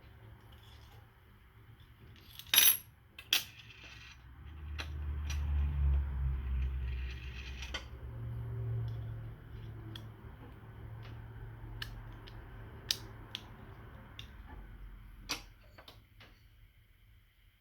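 Small metal clicks and clinks of a utility knife's blade and parts being handled and fitted while the blade is changed, scattered and irregular, the loudest two about two and a half and three and a half seconds in. Low dull handling noise runs under the middle stretch.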